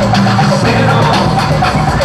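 Loud dance music with a steady drum beat.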